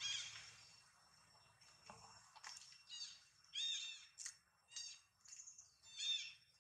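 A series of short, high-pitched animal calls, each rising and falling in pitch, coming about once or twice a second with brief gaps.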